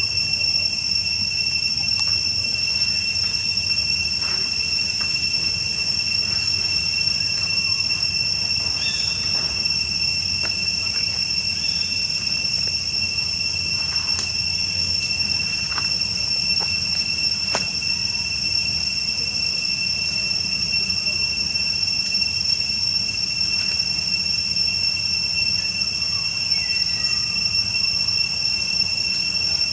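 Insects droning steadily in one unbroken high-pitched tone, over a low rumble, with a few faint short chirps now and then.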